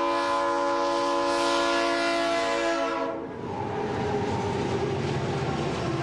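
Train horn sounding a steady chord of several notes, cutting off sharply about three seconds in. After it comes the rumble and rattle of a running train.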